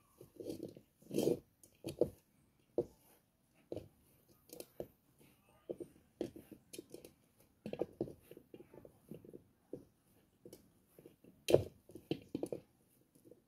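Dumpling dough being kneaded by hand in a metal bowl: short, irregular squeezes and pats, with one louder knock against the bowl about eleven seconds in.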